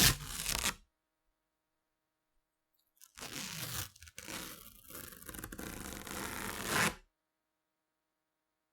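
Duct tape being pulled off: the end of a short rip at the start, then after a pause a longer pull of about four seconds, with a brief break, that is loudest just before it stops.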